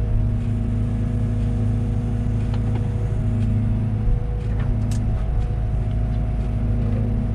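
Liebherr 914 Compact wheeled excavator's diesel engine running steadily, with a few light clicks or knocks in the middle.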